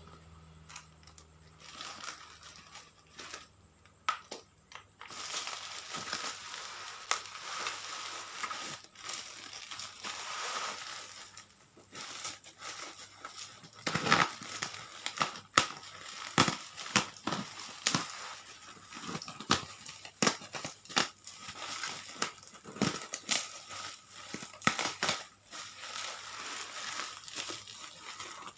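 Packaging being unwrapped and crumpled: irregular crinkling and rustling with sharp crackles. It is sparse at first, then thick and steady from about five seconds in, with the loudest snaps in the second half.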